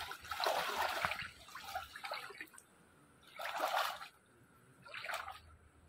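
Water splashing in four short bursts, the loudest in the first second and another about three and a half seconds in.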